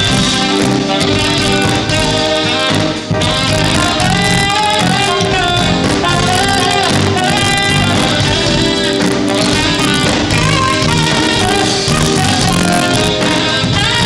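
Live smooth jazz band playing: saxophone and electric guitar over drums, at a steady loud level.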